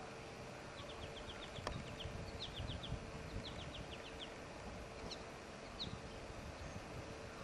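Faint bird chirps: short high notes in quick runs of two to five, repeating every second or so, over a faint steady hum and background hiss.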